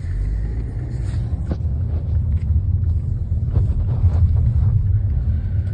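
Low, steady rumble of a car driving, heard inside the cabin, with a few faint knocks.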